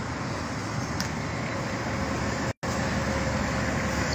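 Steady outdoor background noise, an even mix of rumble and hiss, that cuts out completely for a split second a little past halfway.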